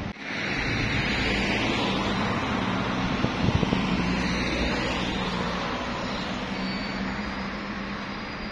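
Road traffic: a motor vehicle passing close by, swelling in the first second and then fading slowly.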